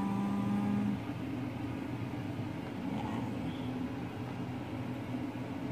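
Steady low hum of a running kitchen appliance, with a held, hummed voice note in the first second.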